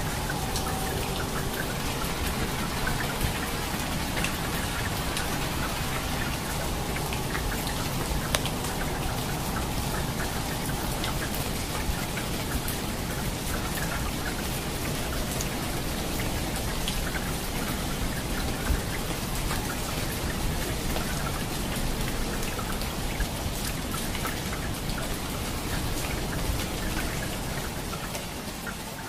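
Steady rain falling, made of many close individual drop hits that sound as fine, sharp ticks over an even hiss. A few louder single drop hits stand out.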